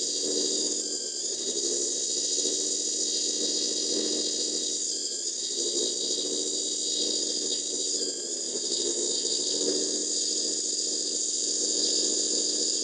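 Hydraulic pump of an RC 10x10 hydraulic crane truck running under load as the crane's telescopic arm is extended. A steady high whine sits over a lower drone that swells and eases slightly as the arm moves.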